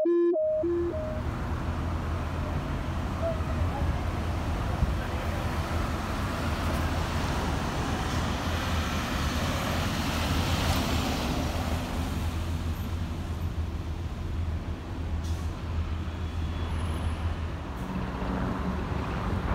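Road traffic dominated by a steady low engine drone, with a vehicle, a box-bodied rescue ambulance, driving past about ten seconds in. No siren is heard.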